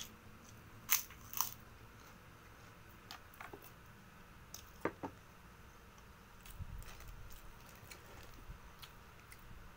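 Close-up chewing of fried rice, with scattered sharp crunchy clicks; the loudest two come about a second in and another pair near the middle.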